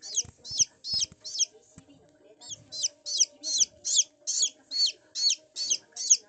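Japanese bantam (chabo) chicks peeping: a steady run of short, high, falling peeps at about three a second, pausing briefly near the middle. A few faint knocks sound in the first two seconds.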